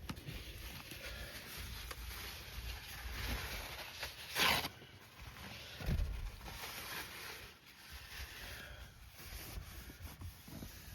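Rustling and scraping handling noises during cleaning work in a truck cab. A short hiss comes about four and a half seconds in, followed about a second later by a low thump.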